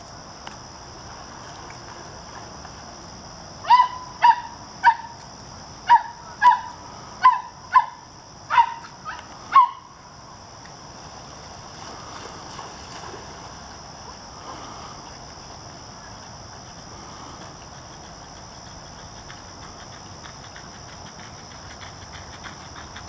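A dog barking: about ten sharp, high-pitched barks in quick succession, starting about four seconds in and stopping near the ten-second mark. A steady high drone of insects, likely crickets, runs underneath.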